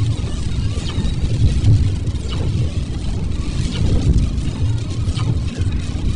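Steady low road and engine rumble of a car driving in rain, with a faint hiss above it.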